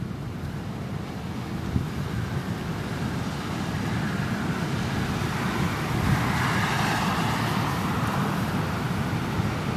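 Heavy storm surf breaking offshore with wind, heard as a steady rushing noise that grows louder toward the middle and eases slightly near the end.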